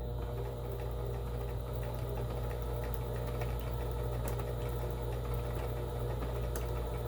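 Kenmore 17922 electronic sewing machine running steadily while sewing a stretch straight stitch, its motor hum even throughout; the machine has been freshly cleaned and oiled.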